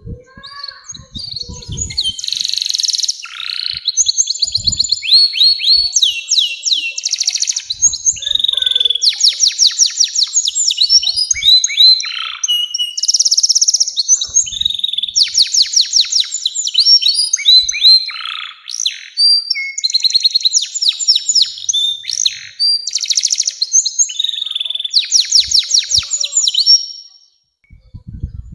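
Domestic canary singing a long, unbroken song of fast trills and rolls: runs of quick repeated notes that jump to new pitches every second or two, stopping near the end.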